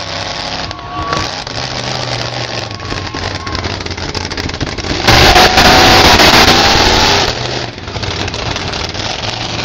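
Monster truck engine running and revving. About five seconds in it goes to full throttle for about two seconds, much louder than the rest, then drops back.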